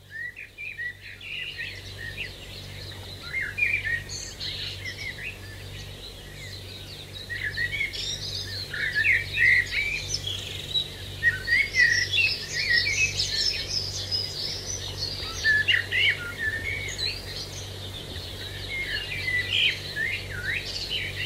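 A chorus of birds chirping, many short overlapping calls, busiest from about a third of the way in to past the middle. A faint steady low hum sits underneath.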